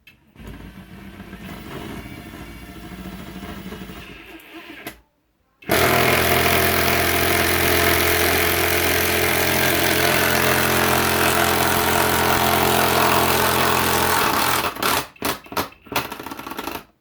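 Bauer 3/8-inch impact wrench hammering a large lag bolt into wood with no pilot hole. It runs steadily for about eight seconds, then gives a few short bursts before stopping. The tool is struggling: the bolt stalls only about a quarter of the way in.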